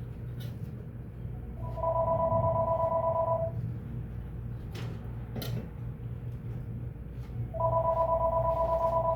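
Home telephone ringing twice, an electronic two-tone trilling ring about two seconds long each time, the rings about six seconds apart.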